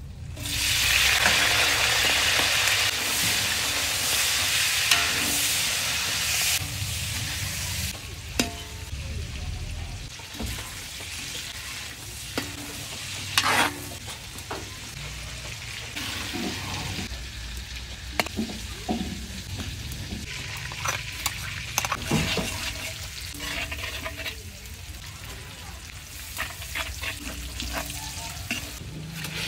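Food sizzling in hot oil in a cooking pan, starting suddenly and loud for about six seconds before settling to a quieter sizzle. Through the rest, a utensil stirs the food, with scattered scrapes and clinks against the pan.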